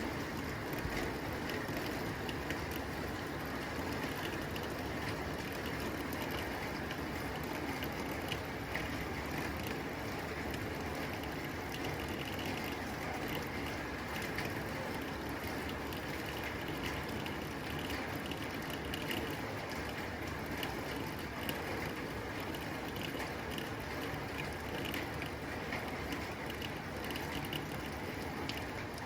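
Heavy rain falling steadily on a tin roof, a dense hiss of drops with countless fast ticks of water striking the metal.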